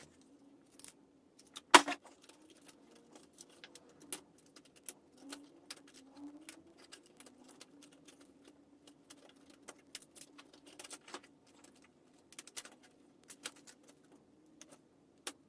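Scattered clicks and light clatter of small plastic and metal parts being handled as an electronic toy is pulled apart, with one sharp, louder click about two seconds in. A faint steady hum sits underneath.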